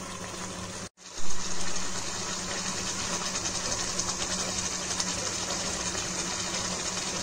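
Chicken pieces in a thick masala gravy sizzling and bubbling in a pan, a steady fine crackle as the chicken cooks in its own released juices without added water. The sound cuts out briefly about a second in and comes back louder, over a steady low hum.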